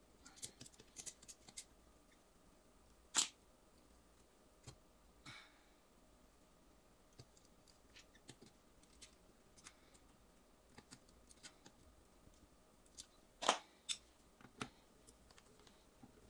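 Sparse, faint clicks and small scrapes of hands and pliers working stiff electrical wires and twist-on wire connectors at a dishwasher's metal junction box. There are two sharper clicks, about three seconds in and about thirteen seconds in.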